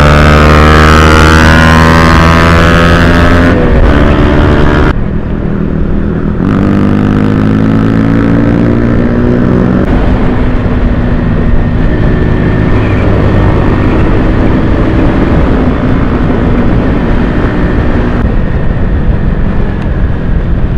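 Motorcycle engine at speed, accelerating through the gears: its pitch climbs over the first few seconds, drops at a shift about four seconds in, climbs again until about ten seconds in, then holds fairly steady.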